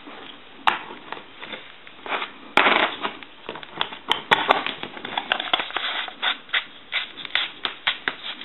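Handling noise from a payphone handset being reassembled: irregular scraping, rubbing and small clicks of parts and wires fitted around the transmitter, busier from about two and a half seconds in.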